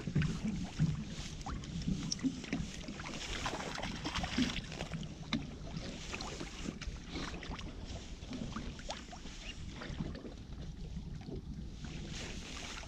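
Wet drift net being hauled by hand over a boat's gunwale: rustling, dripping mesh with many small scattered clicks and knocks over a steady low rumble.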